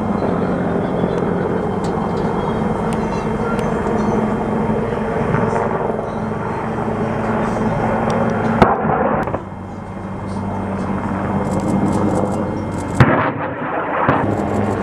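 Military helicopter engine and rotor noise running steadily with a low hum, broken by two sharp bangs, one about eight and a half seconds in and one about thirteen seconds in. A quick run of faint clicks comes near the end.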